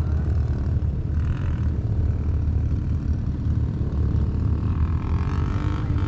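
ATV engine idling, a steady low rumble picked up by a camera mounted on the quad.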